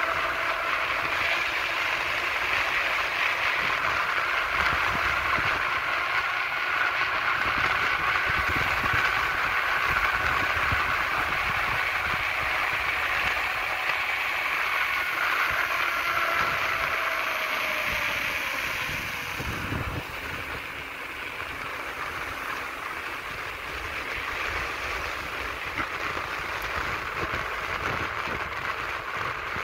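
Wind rushing over the microphone and wheels rolling on asphalt during a fast downhill ride, with a faint steady whine that slides lower a little past halfway. About two-thirds through, the noise turns quieter and duller.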